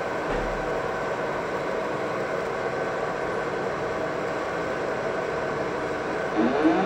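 Fiber laser marking machine running with a steady hum and a thin high whine while it marks a metal ring. Near the end a motor whine rises and falls in pitch as the rotary chuck turns the ring.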